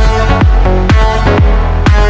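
Background electronic dance-pop music with a steady four-on-the-floor kick drum, about two beats a second, under sustained synth chords.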